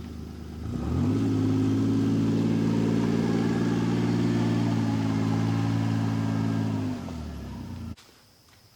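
Kawasaki Mule utility vehicle's engine speeding up, running at a steady pitch for several seconds, then easing back down. The sound cuts off suddenly near the end.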